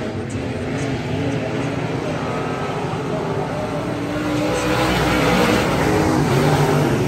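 A pack of USRA limited modified dirt-track race cars with V8 engines running at racing speed. Their engine noise grows louder from about four seconds in as the field comes down the straight past the stands.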